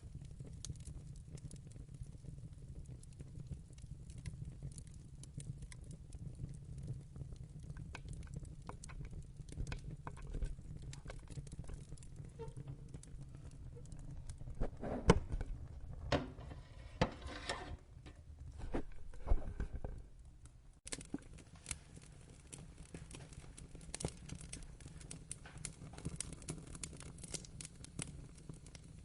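Wood fire burning in a fireplace: a low steady rumble with scattered crackles throughout. A burst of louder pops and snaps comes about halfway through.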